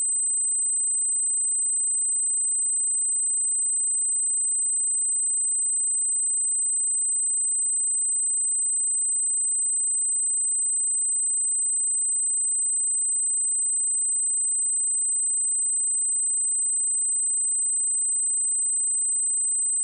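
Pure 8114 Hz sine-wave test tone, a single high-pitched steady whistle held at constant level.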